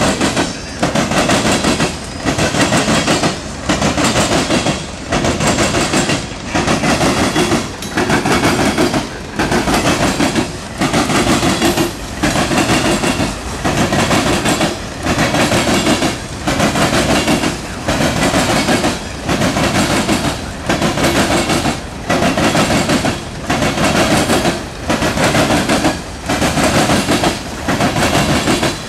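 Loaded coal hopper cars of a freight train rolling past, their steel wheels clattering loudly over the track, with a short lull about every one and a half seconds as each car goes by.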